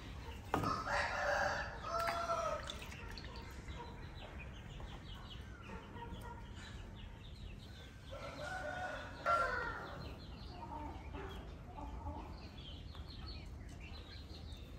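A rooster crowing twice, the first crow starting about half a second in and the second about eight seconds in, with small birds chirping faintly in between.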